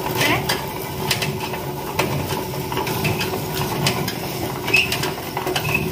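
Hand-turned stone quern (chakki) grinding lentils: the upper stone turns continuously against the lower, giving a steady grating, scraping noise with small irregular clicks.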